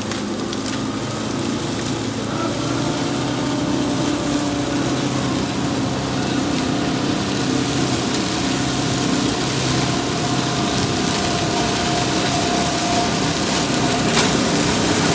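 Motor of a cutting machine running steadily with a constant hum, slowly growing a little louder.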